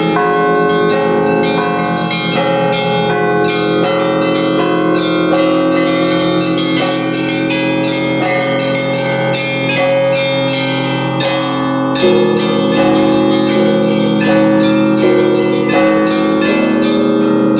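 Russian church bells rung by hand in a dense, rapid peal: small high bells chime quickly over lingering lower bells. About twelve seconds in, deeper bells join and the ringing grows a little louder.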